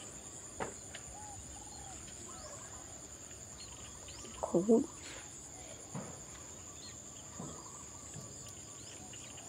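Steady high-pitched chorus of crickets, with faint small chirps over it and one short pitched call, like a voice or a hen, about halfway through.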